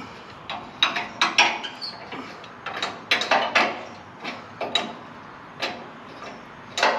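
Irregular metallic clicks and clinks of a hand wrench working the engine-mount bolts on a wood chipper's steel slide rails as they are loosened.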